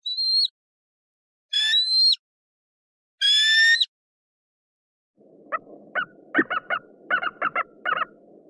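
Eagle calls: three separate high screaming calls, each about half a second long and bending upward at the end, then after a pause a different recording with a faint background hiss in which the bird gives a quick series of about eight short, high, chattering calls.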